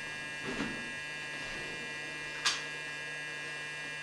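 Steady electrical hum with a whine of several fixed high tones. About two and a half seconds in, a single sharp click from handling the Winchester Model 12 pump shotgun.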